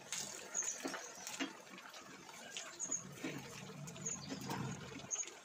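Mysore bajji fritters deep-frying in hot oil, the oil sizzling with small irregular pops and crackles.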